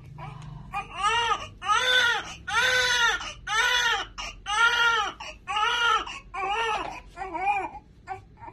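Newborn baby crying: a run of about eight short wails, roughly one a second, each rising and falling in pitch. The cries begin about a second in and grow weaker near the end.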